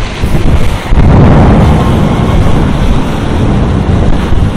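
Thunderstorm noise: a loud low rumble that swells about a second in and holds, with wind buffeting the microphone.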